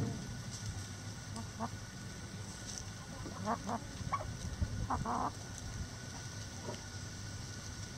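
Backyard chickens clucking, a few short calls spread through, over a steady low background hum.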